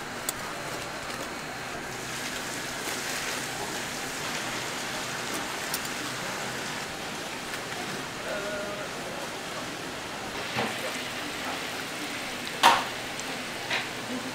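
Hot oil in a deep fryer sizzling with a steady hiss as handmade fish cakes fry. Near the end there is one sharp clack and a few lighter knocks of utensils.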